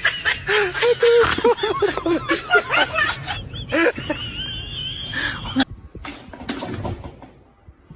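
People laughing and talking in quick, repeated bursts, then a high held tone rising slightly for about a second and a half, a few sharp clicks, and the sound fading out near the end.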